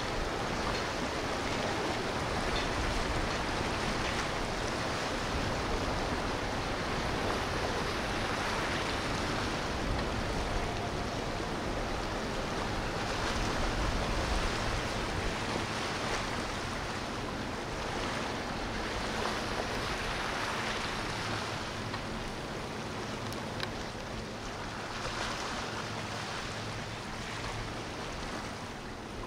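Steady rush of boat wake and churned water, swelling and easing several times, over a low boat-engine rumble.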